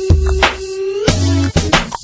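Hip hop music: a sparse beat of sharp clicks and bass thumps under a held synth note that bends up and stops about a second in.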